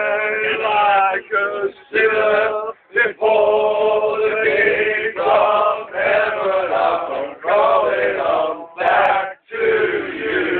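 A man singing live, a run of sung phrases of held notes separated by short breaths.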